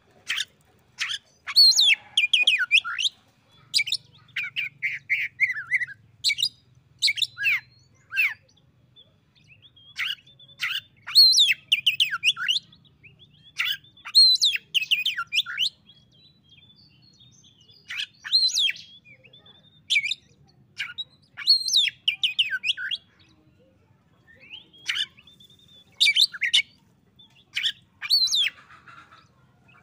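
Oriental magpie-robin (kacer) singing: repeated phrases of sharp, rapidly sweeping whistled notes and quick trills, each a second or two long with short pauses between. It is a rival-calling song meant to set other magpie-robins singing back.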